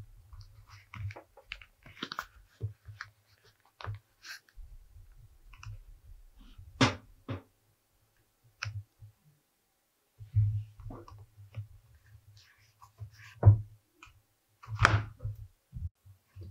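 Hands and small leatherworking tools handling a leather wallet on a wooden tabletop: scattered light clicks and taps over soft low thumps, with a few sharper clicks about seven seconds in and twice near the end.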